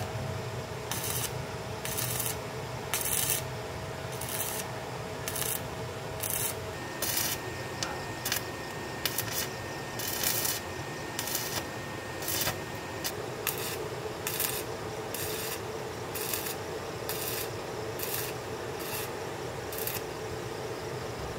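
Repeated hand strokes rubbing or scraping against a hard surface. They come irregularly, up to about two a second, over a steady faint hum.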